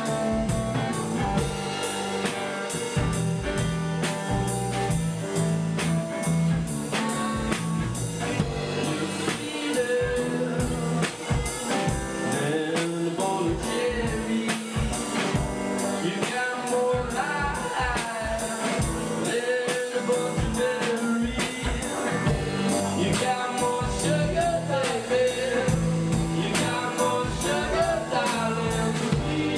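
A band playing a song: drum kit on a steady beat with bass and guitar, and a singer's voice wavering over it, strongest in the middle stretch.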